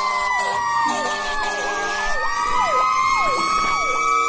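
Several fire engine sirens sounding at once. One holds a steady high wail that drifts slowly in pitch, while another sweeps quickly downward over and over, about twice a second, and a lower horn-like tone comes in briefly.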